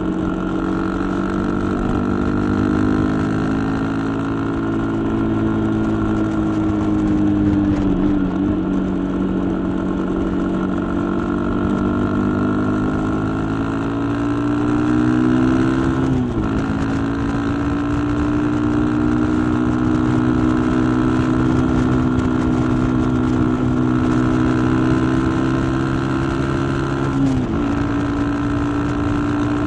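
Suzuki Gixxer 150's single-cylinder engine under acceleration, its pitch climbing as road speed builds. The pitch drops sharply at two upshifts, one about halfway through and one near the end.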